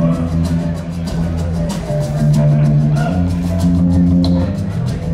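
A live rock band playing an instrumental: an electric guitar lead line over sustained bass guitar notes and a drum kit with steady cymbal strokes.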